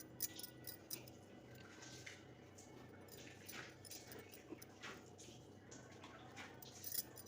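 Faint clicks and light knocks of kitchen vessels and the herb bundle being handled, over a low steady hum.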